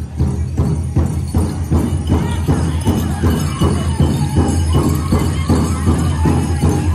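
Powwow drum group beating a large shared bass drum in a steady beat of about three strokes a second, with the group's singers coming in over it about two seconds in.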